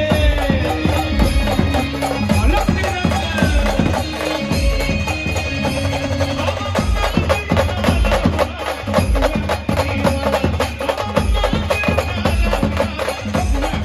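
Live band music: a keyboard melody over fast, steady drumming.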